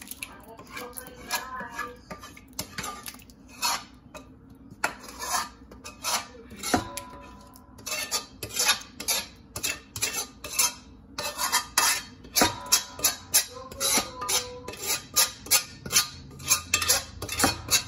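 Metal ladle clanking and scraping against a pot and a large stainless steel bowl as spaghetti sauce is scooped out, a run of sharp knocks that come about two a second in the second half, with brief metallic ringing.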